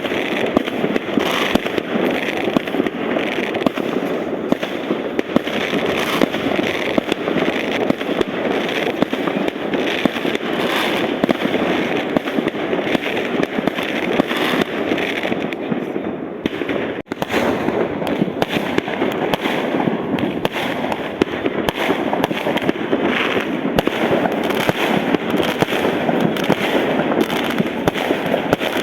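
A fireworks barrage: many shells and firecrackers bursting over one another in a dense, continuous crackle of bangs, broken only by a momentary drop about seventeen seconds in.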